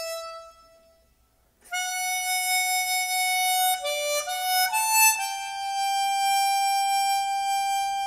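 Solo saxophone playing a slow melody. A held note fades away in the first second, and after a short pause a new phrase begins: long sustained notes with a few quicker ones in the middle.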